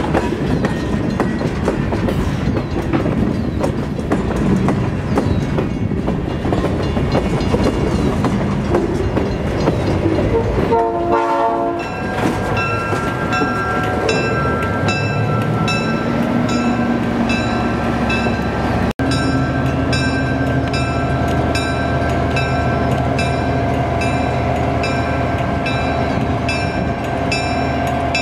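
Covered hopper cars of a ballast train rolling past with their wheels clattering over the rails. About halfway the diesel switcher locomotive passes close, its engine running steadily, while a grade-crossing bell rings in an even, repeating beat.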